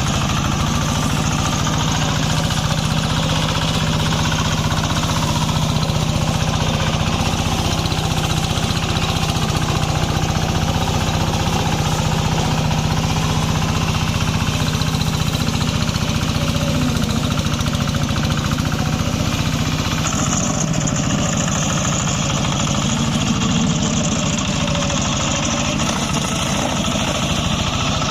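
Small brush-cutter engine running steadily at a constant speed, with a brief change in its hiss about twenty seconds in.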